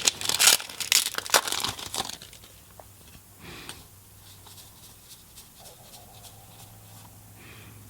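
Foil Magic: The Gathering booster pack wrapper crinkling and tearing open, dense for about two seconds, then only faint rustles as the cards are handled.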